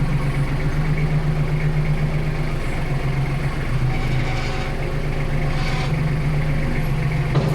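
Engine running steadily at idle, a constant low hum.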